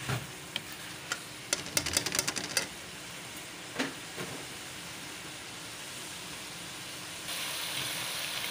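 A metal spatula scrapes and clicks against a metal wok as bitter gourd fried in spiced oil is stirred, over a steady sizzle. The fry has reached the stage where the oil has separated from the masala. A quick run of strokes comes about two seconds in and another stroke near four seconds, then the sizzle carries on alone and grows louder near the end.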